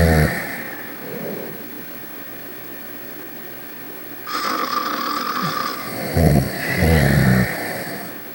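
Snoring: a deep, rumbling snore dies away just at the start, a breathy breath follows a few seconds later, and two more short rumbling snores come near the end.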